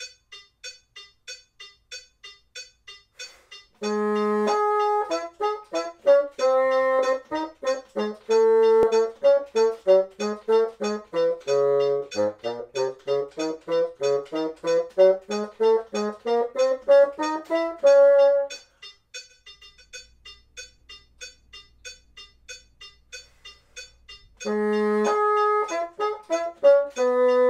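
Bassoon playing an étude over a metronome clicking eighth notes at 96 BPM, about three clicks a second. The metronome clicks alone for the first few seconds and again for several seconds past the middle, with the bassoon coming back in near the end. In the middle the bassoon plays a run that drops to its low notes and climbs back up.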